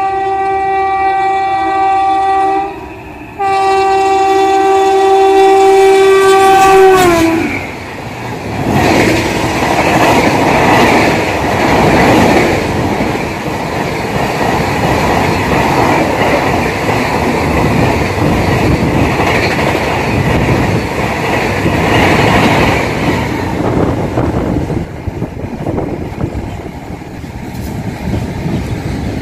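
Express train of LHB coaches passing through a station. The locomotive's horn sounds a long blast, breaks off briefly about three seconds in, then sounds again and drops in pitch as the locomotive goes by about seven seconds in. The coaches then rush past with a steady rattle and clickety-clack of wheels over rail joints for about twenty seconds.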